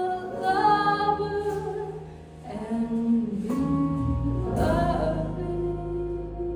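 Slow jazz ballad played by a small band: long held melody notes over a low bass line.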